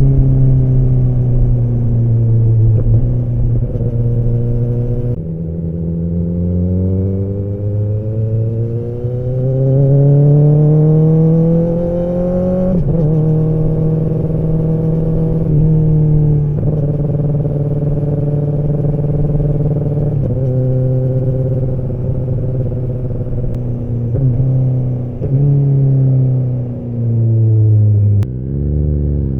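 Kawasaki ZX-10R inline-four exhaust heard from the rider's seat, pulling through the gears. The revs climb steadily for several seconds, then hold and dip at a series of quick drops as the throttle is rolled off or gears change. Near the end the revs fall sharply and then rise again.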